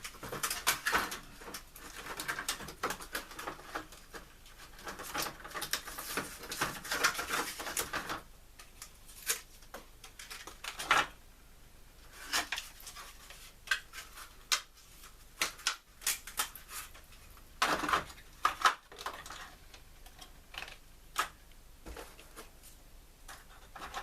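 A model railway station being broken up by hand: a dense run of cracking, snapping and clattering for about eight seconds, then scattered single sharp snaps and clicks.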